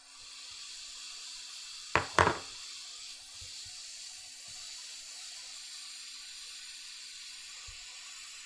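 Hot air rework station blowing a steady hiss of air onto the fluxed iPhone 8 logic board, starting and stopping abruptly. Two sharp clicks come about two seconds in.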